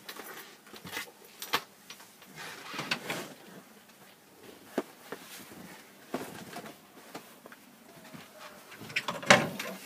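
Rustling and scattered light knocks of a campervan bed's upholstered seat cushion being lifted out and set aside, with a louder clatter near the end as the hinged storage lid beneath it is lifted.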